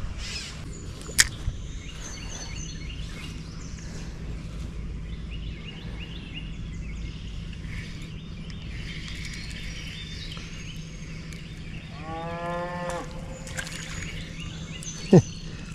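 Steady low outdoor hum with scattered bird chirps, a sharp click about a second in, and one drawn-out animal call lasting about a second, about twelve seconds in.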